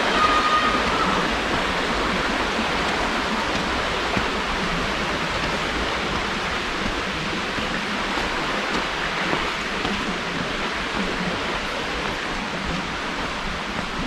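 The Braid Burn, a small woodland stream, running steadily over rocks, slowly growing a little fainter.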